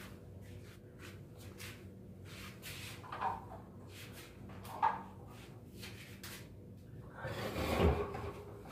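Wooden furniture and boards being handled in a cramped room: two light knocks about three and five seconds in, then a louder knocking noise about a second long near the end.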